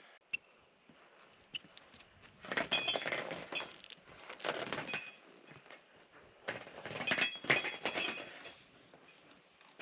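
Footsteps and shifting weight on corrugated steel roofing panels: metallic clinks and thunks with a short ring, coming in three clusters.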